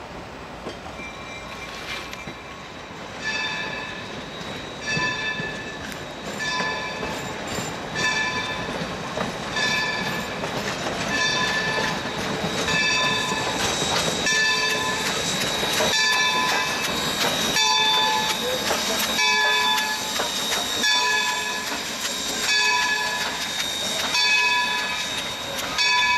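A steam locomotive's bell ringing over and over, about once every three-quarters of a second, as the steam train with its passenger coaches moves past. The sound grows louder a few seconds in.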